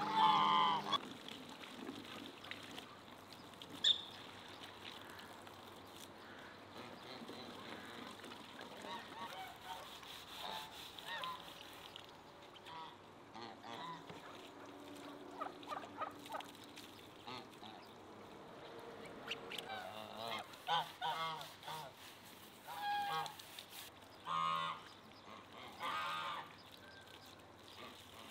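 Short, repeated animal calls with a wavering pitch, coming in clusters that are thickest in the last third. A single sharp knock about four seconds in.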